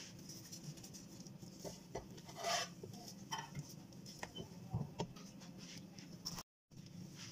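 Kitchen handling noises as a cheese-topped flatbread is laid on an electric pizza maker's hot plate and its lid is shut: scattered light taps and knocks over a low steady hum, with one brief louder rustle about two and a half seconds in.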